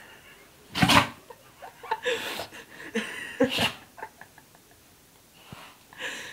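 Labrador retriever sneezing in a run of short, forceful sneezes, the loudest about a second in; the owner wonders whether the dog got dust up its nose.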